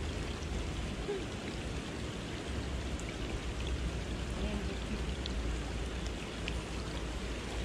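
Steady rain falling: an even hiss with a few faint drop ticks, over a low rumble.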